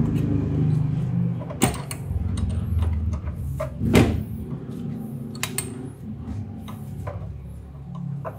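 A few sharp metallic clicks and knocks, the loudest about four seconds in, from a wrench working the bleeder valve on a motorcycle's front brake caliper as it is loosened for bleeding. A steady low rumble runs underneath.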